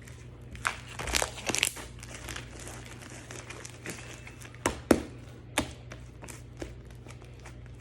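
Slime being squeezed and pressed by hand, giving irregular crackling clicks and pops, densest about a second in and with a few sharper pops around five seconds in.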